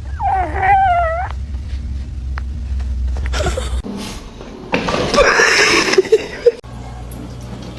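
A domestic cat gives one drawn-out, wavering meow about a second long near the start. Later comes a loud burst of rough, noisy sound lasting about a second.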